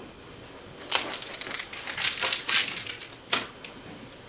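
Plastic packaging or tape crinkling and rustling as a printer is handled, in several short bursts, with a sharp knock a little over three seconds in.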